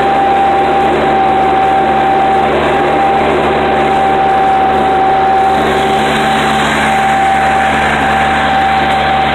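Tractor engine running steadily under load, heard from inside the cab while pulling a disc harrow, with a steady high whine over the engine hum.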